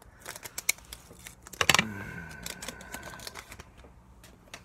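Pokémon trading cards and a foil booster-pack wrapper being handled: a run of small sharp clicks and rustles, the loudest a little under two seconds in.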